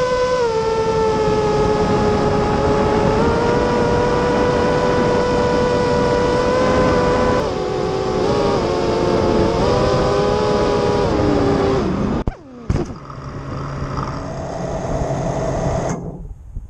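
Motor and propeller of a radio-controlled model aircraft running steadily, its pitch stepping up and down with the throttle. About twelve seconds in it cuts out with a click, and a fainter whir carries on and stops about four seconds later.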